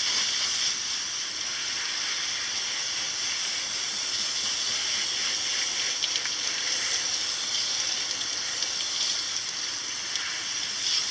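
Garden hose spraying water steadily onto the mesh of a reusable electrostatic HVAC air filter to wash it clean: an even, unbroken hiss of spray.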